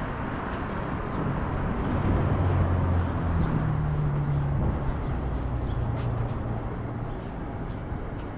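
A motor vehicle's engine passing on a city street, its low hum swelling about two seconds in and fading by about seven seconds, over steady street noise.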